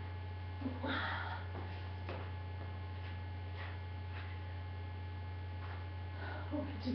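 Steady low electrical mains hum on the recording, with a few faint, brief shuffling sounds.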